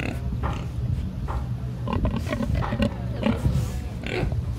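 Pigs in a pen grunting, in short calls at irregular intervals over a low, steady hum.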